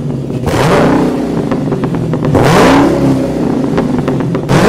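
A car engine revving hard three times, its pitch sweeping up with each rev, with a quick run of sharp ticks between the first two revs.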